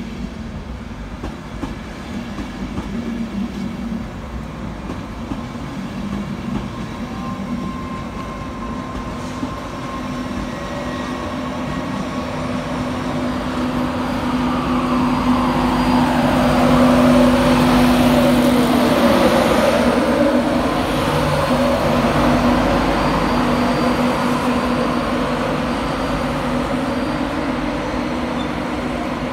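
LNER InterCity 225 train (Class 91 electric locomotive 91130 with Mark 4 coaches and driving van trailer 82223) rolling slowly into the platform, with running and wheel noise over a steady hum. About halfway through, a whine that bends up and down in pitch swells to its loudest, then eases off.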